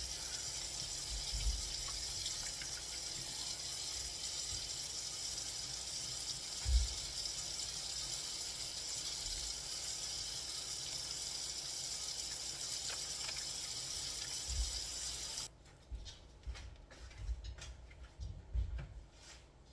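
Kitchen sink faucet running steadily while hands are washed under it, then shut off suddenly near the end, followed by a few soft handling noises.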